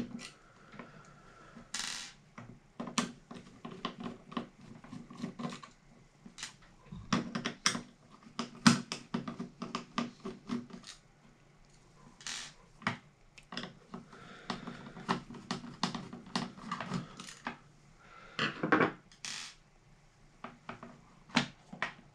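Screwdriver turning small screws out of a desoldering gun's plastic housing, with irregular sharp clicks and clinks as the little metal screws are set down on a wooden desk and the plastic shell is handled.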